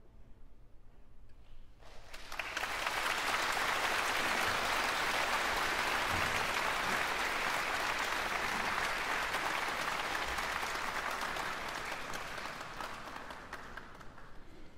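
Concert-hall audience applauding. The clapping breaks out about two seconds in, holds steady, and dies away near the end.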